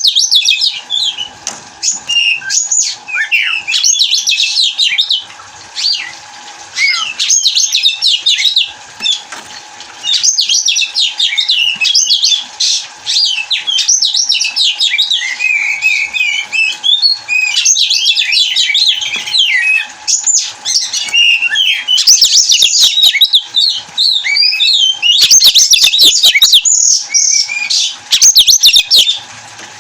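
Oriental magpie-robin (kacer) singing a fast, varied, loud song of quickly changing whistled and chattering phrases with brief pauses. Sharp clicking bursts are mixed in near the end.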